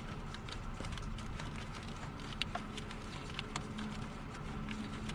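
Scattered light metallic clicks and taps of a socket wrench working loose a starter mounting bolt, irregular rather than a steady ratchet rhythm, over a steady low hum.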